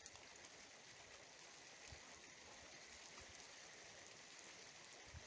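Near silence: a faint steady hiss with a few faint ticks, between peals of thunder.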